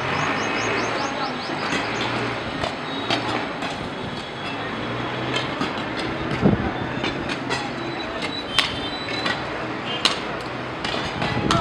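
Commotion of a crowd with raised voices over a dense din of sharp knocks and clatter from sticks and rods striking objects. The loudest knock comes about six and a half seconds in.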